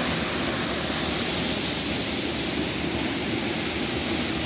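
Waterfall with a steady, unbroken rush of falling water.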